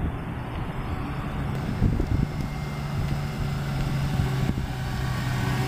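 Ford Mustang fastback's engine running steadily at low speed as the car rolls slowly past, growing a little louder toward the end.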